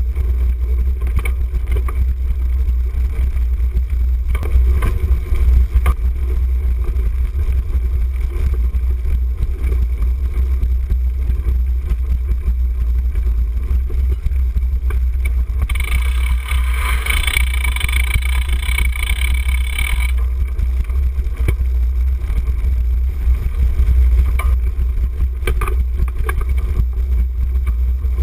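Wind buffeting a handlebar-mounted camera's microphone on a cyclocross bike being ridden fast over rough dirt, a steady low rumble with scattered rattles and knocks from the bike. A higher-pitched buzz joins for about four seconds midway.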